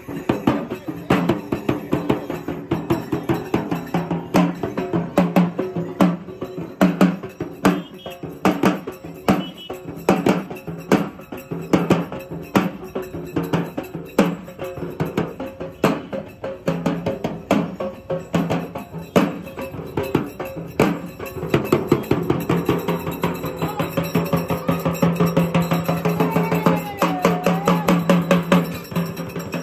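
Percussion-led music: fast, steady drum strikes in an even rhythm, with a held low note joining about two-thirds of the way through.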